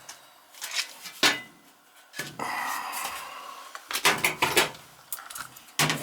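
Knocks, clicks and a scrape of the furnace's sheet-metal access panel being handled and taken off. There is one sharp knock early on, a scraping slide in the middle, then a cluster of clicks and knocks.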